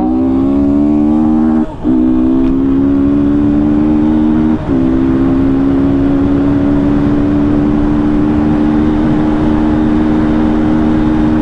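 Yamaha Fazer 250's single-cylinder engine, running without its air filter, pulling hard under full acceleration. The pitch rises a little, with two brief dips for upshifts about two and five seconds in, then holds as a nearly steady high drone.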